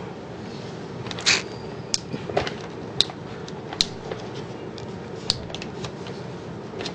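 Small handling noises in a room: about half a dozen short, sharp clicks and a brief rustle over a steady background hiss.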